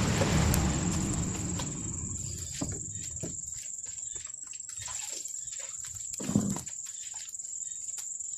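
Skewered squid sizzling on a grill over low heat, loudest in the first couple of seconds and then settling to scattered crackles. Crickets chirp steadily in the background, and a short thump comes about six seconds in.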